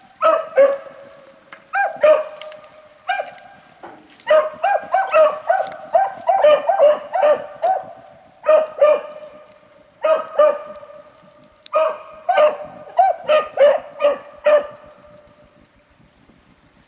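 Beagles giving tongue on a rabbit's track: short barks in quick runs, with several dogs at times overlapping. The barking drops away near the end.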